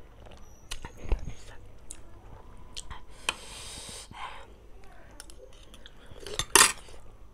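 Close-up eating sounds: chewing and slurping of instant noodles, with scattered small clicks of a spoon. A short loud burst comes about six and a half seconds in.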